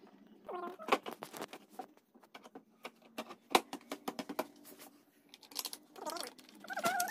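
Irregular plastic clicks and taps from handling a Maruti Suzuki Swift's tail-lamp housing, bulb holder and wiring as the lamp is refitted. A few short warbling pitched calls are heard near the end.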